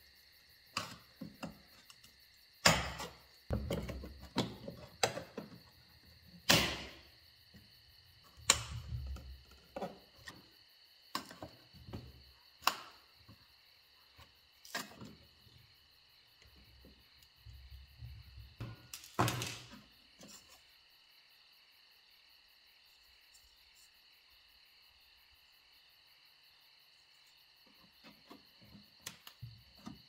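Hand tools prying at and bending the metal tabs of an old perforated drain cover set in wood: irregular sharp clicks, scrapes and knocks of metal on metal and wood, which stop about two-thirds of the way through. A steady high chirring of insects runs underneath.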